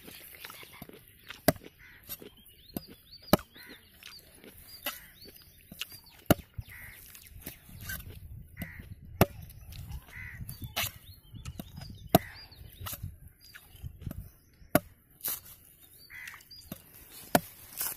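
Curved machete blade chopping into the fibrous husk of a tender green coconut: sharp strikes at an uneven pace, roughly one every second and a half, about a dozen in all.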